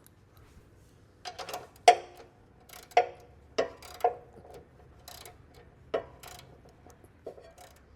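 Wrench tightening a lawn mower's oil drain plug: a dozen or so sharp metallic clicks at uneven intervals, each ringing briefly.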